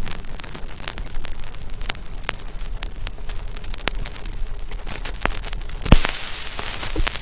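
Old-film crackle sound effect: a steady hiss scattered with sharp pops and clicks, with one louder pop about six seconds in, after which the hiss is brighter.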